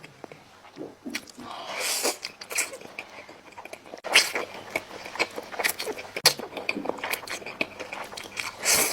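Close-miked eating sounds of spicy braised chicken: chewing and biting with many small wet mouth clicks, starting in earnest about four seconds in. A short breathy rush comes about two seconds in, and another near the end.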